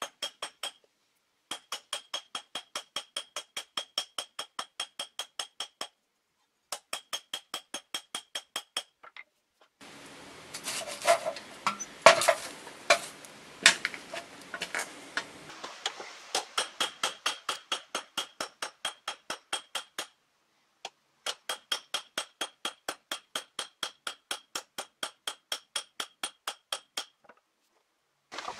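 Blacksmith's hammer striking red-hot steel on an anvil in steady runs of about four blows a second, each blow with a high ring from the anvil. About ten seconds in, the hammering gives way to several seconds of rustling and sharp clinks as the work is pushed back into the charcoal forge fire. The hammering then starts again.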